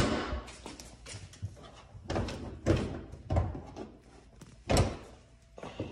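A single loud slam at the start as the Tesla Model S frunk lid is shut, followed by a few softer, irregular thumps and scuffs.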